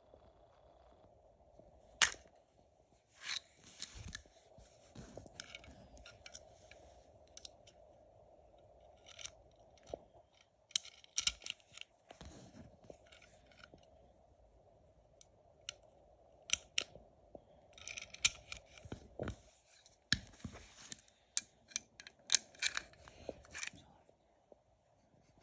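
Handling of a .32 bore pistol: irregular metallic clicks and short rattles, with one sharp click about two seconds in, over a faint steady hum.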